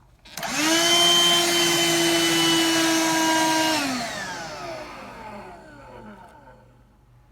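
BLACK+DECKER Dustbuster cordless handheld vacuum switched on: its motor whines up to a steady high pitch, runs for about three and a half seconds, then is switched off and spins down with a falling whine.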